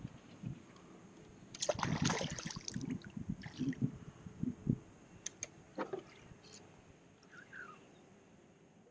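Water splashing and sloshing beside a kayak: a run of irregular splashes in the first half, then a few scattered small splashes and clicks that die away.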